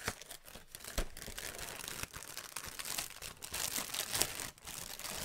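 A cereal box's plastic inner bag being pulled open by hand, crinkling and crackling throughout, with a sharp snap about a second in.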